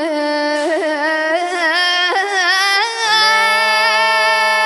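A boy reciter singing a Shia Husseini lament (latmiya) in Arabic, with the voice wavering through melodic runs. From about three seconds in he holds one long steady note.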